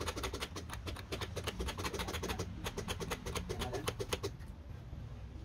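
A fast, even run of sharp clicks, about eight a second, that stops about four seconds in, over a low steady hum.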